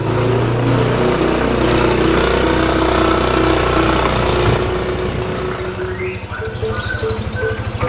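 A motor vehicle's engine running steadily, with background music playing over it.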